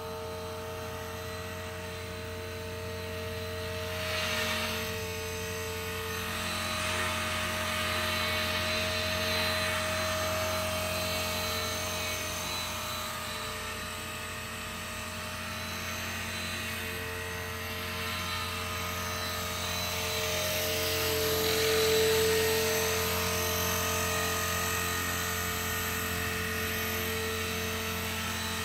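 Blade 450 3D electric radio-controlled helicopter with a CopterX flybarless head hovering: a steady whine from the motor and rotor blades, swelling louder twice, about four seconds in and again near twenty-two seconds.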